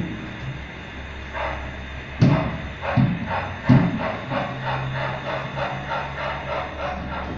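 O scale BR 57 model steam locomotive running, with a regular chuffing at about four beats a second. A few heavy thumps come in the first half.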